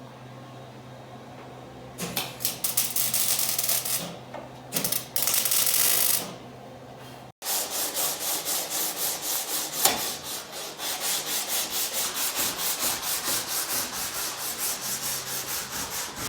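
Sanding on a car's body, rough scratchy strokes. They come in irregular bursts at first, then settle into a steady back-and-forth rhythm of about two strokes a second.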